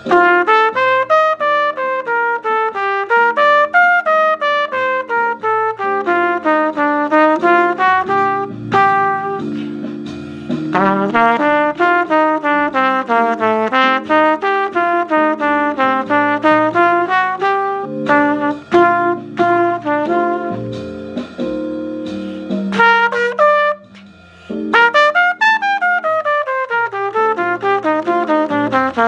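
Trumpet improvising fast bebop lines over a jazz ii–V–I backing track: quick runs of short notes that climb and fall, chord arpeggios joined to bebop scales. The horn pauses briefly near 10 s and again about three-quarters of the way through, leaving the held backing chords.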